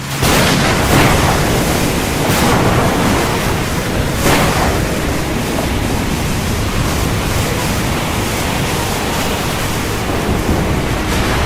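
Heavy rain pouring steadily in a dense, even hiss with a low rumble underneath. It starts abruptly at full loudness and swells briefly a few times.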